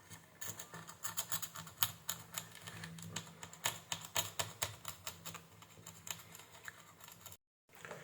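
Small metal hand tools clicking and tapping in quick, irregular runs, faint, as a jumper wire is fitted to the remote-on line of a car amplifier's circuit board.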